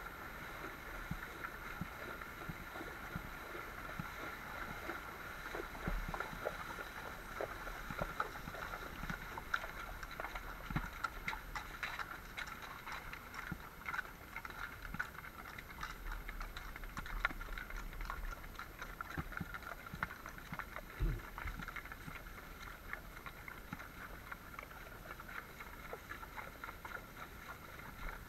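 Horses wading up a river, hooves splashing and knocking irregularly in the water, over a steady high hiss of background noise.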